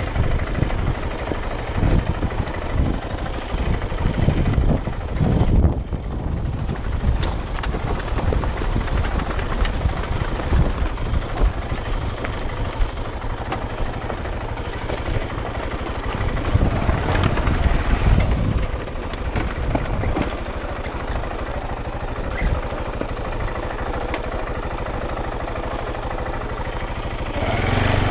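KTM 690 Enduro R's single-cylinder engine running on a rough, steep descent, with irregular knocks and jolts from the bike over rocky ground. The sound grows louder near the end.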